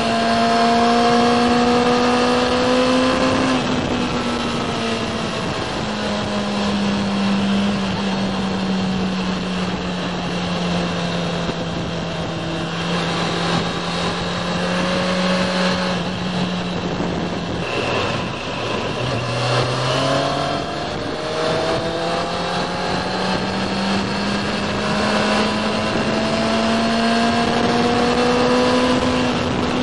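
Kawasaki ZX-6R Ninja's inline-four engine heard onboard over wind noise. The engine note drops about three and a half seconds in, holds steady, dips low about 18 seconds in, then rises steadily through the last ten seconds as the bike accelerates.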